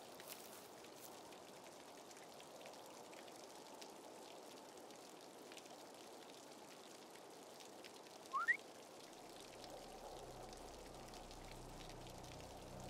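Faint steady outdoor hiss. About eight seconds in, a quick rising chirp is the loudest sound, and a low hum comes in soon after.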